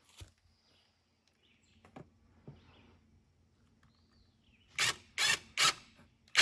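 Quiet with a few faint taps, then about five seconds in a quick run of sharp rustling and tearing strokes, about two or three a second, as a light fixture's packaging is torn open.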